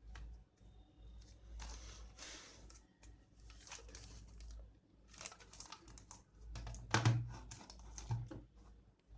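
Hand-handling noises from unboxing a wifi router: plastic or paper packaging crinkling and rustling, with scattered light clicks and a sharper click about seven seconds in.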